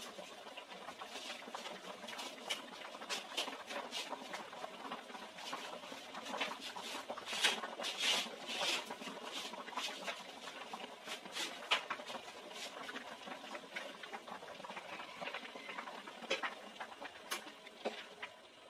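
Pot of mung bean soup boiling hard: a steady bubbling with many irregular small pops and splutters, busiest around the middle.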